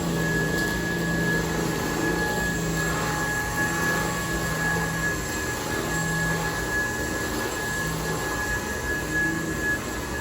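UNINELL UV3 cordless stick vacuum running steadily, a constant motor hiss with a high whine over it.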